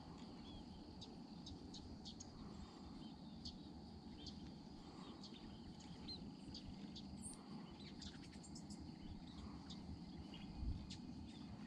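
Faint, irregular high chirps of small birds, scattered throughout, over a low steady rumble, with a soft low thump near the end.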